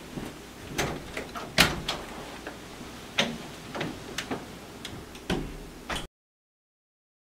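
A house door being handled: a series of sharp knocks and latch clicks, the loudest about a second and a half in. The sound cuts to dead silence about six seconds in.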